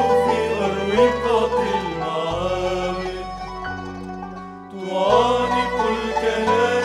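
Live hymn performance: men's voices singing together over instrumental backing, with held bass notes that change every second or two. The music dips briefly about four and a half seconds in, then swells again.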